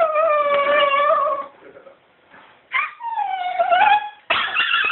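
Dog whining and howling at a cat: long, wavering calls that slide down in pitch. One trails off about a second and a half in, a short sharp call and another long one follow around three seconds in, and a third begins near the end.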